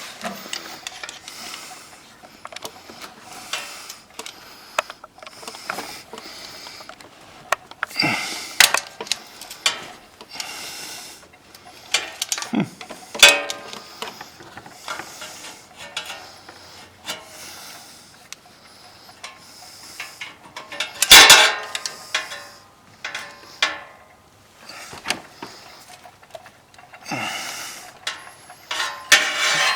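A large screwdriver prying at an ATV's starter motor to work it loose from the engine: irregular metal scrapes, clinks and knocks, with a few louder scraping strokes along the way.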